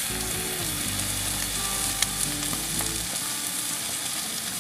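Beef mince pressed onto a beaten-egg pancake sizzling steadily as it fries in a pan, with a single click about two seconds in.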